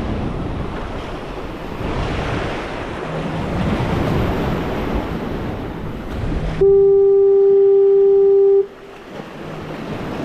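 Waves washing on jetty rocks, then a loud horn blast about six and a half seconds in: one deep, steady tone held for about two seconds and cut off sharply.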